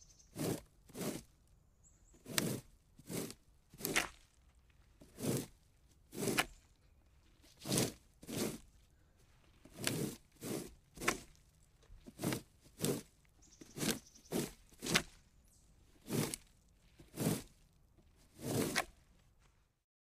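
Plastic rake raking in short, separate strokes, about one a second at uneven intervals.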